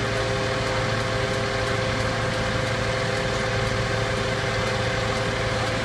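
Fire engines running steadily at the scene, a constant engine hum with a few steady tones.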